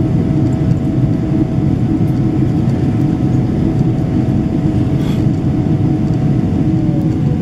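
Steady in-flight cabin noise of a Boeing 777-300ER: the low rush of airflow and its GE90-115B engines, with a thin steady whine that starts sliding down in pitch near the end.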